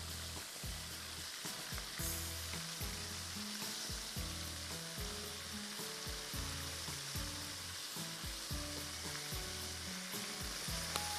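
Chicken wings deep-frying in hot oil, a steady sizzle, while a slotted spoon stirs them and lifts pieces out of the pan. One sharp tap near the end.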